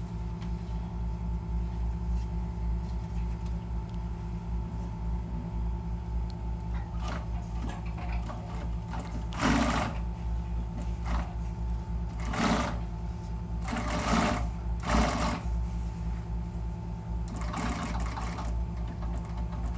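Juki sewing machine running on a test run: a steady motor hum throughout, with about five short, louder bursts of the machine working from about halfway in.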